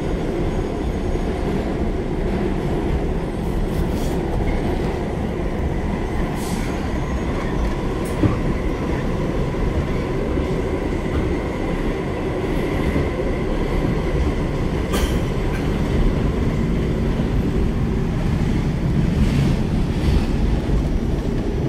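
A New York City subway car running, heard from inside: a steady rumble of wheels on the rails, a few sharp clacks, and a faint high wheel squeal.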